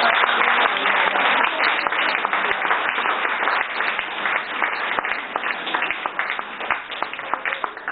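Audience applauding, loudest at the start and slowly dying away.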